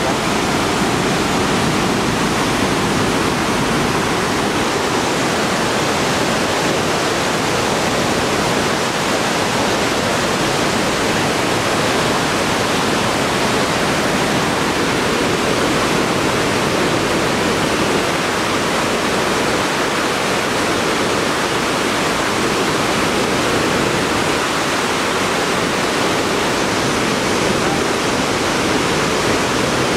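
Itaipu Dam's spillway discharging: white water rushing down the concrete chute in a steady, loud, unbroken roar.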